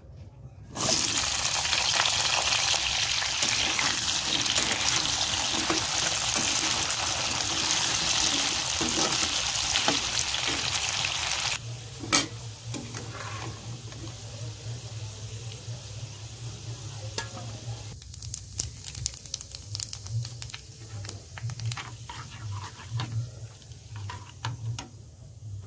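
Cubed kohlrabi dropped into hot oil in a nonstick pan, sizzling loudly and steadily. About halfway through it cuts to quieter frying, with a metal spatula clinking and scraping against the pan as the pieces are turned and stirred.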